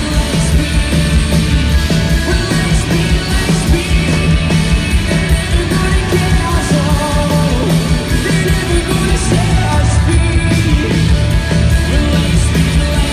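Rock band playing live through a venue PA: electric guitars, bass and drums at a steady beat, with a sung vocal line.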